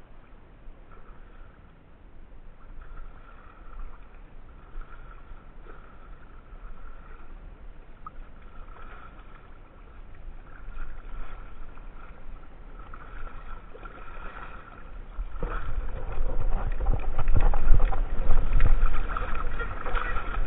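Gentle water lapping while a hooked black drum is played at the angler's feet. About fifteen seconds in it turns to loud, choppy splashing as the fish thrashes at the surface and is scooped into a landing net.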